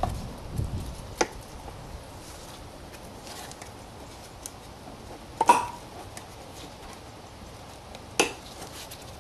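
Hard plastic clicks and knocks as the Peugeot 307 rear light cluster and its bulb holder are handled: three sharp clicks, about a second in, in the middle (the loudest) and near the end, with some rustling at the start.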